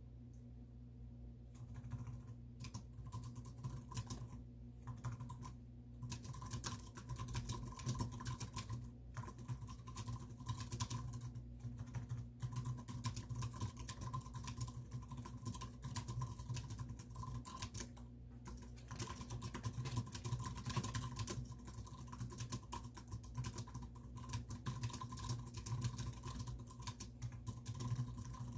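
Continuous fast typing on a computer keyboard, key clicks in quick runs broken by short pauses, over a steady low hum.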